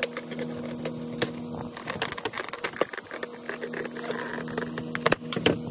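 Unboxing of a foam dart blaster: its packaging and parts being handled, giving an irregular run of small clicks, taps and rustles over a steady low hum.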